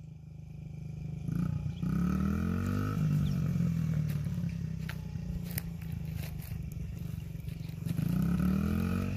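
Yamaha 50cc dirt bike engine idling, then revved up about a second and a half in as the bike pulls away, running at higher revs, and revving up again near the end.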